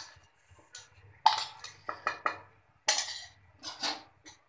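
Steel kitchenware knocking and scraping against a steel cooking pot as ground bread is emptied from a bowl into boiling milk: a string of sharp metal clinks in two quick clusters, the loudest a little over a second in.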